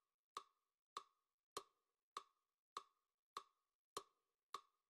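Eight quiet, evenly paced clicks, about one every 0.6 seconds, each with a short ringing tail: a typing sound effect, one click for each letter of on-screen text.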